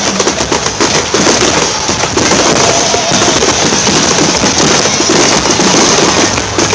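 Fireworks crackling: a dense, continuous stream of rapid sharp pops.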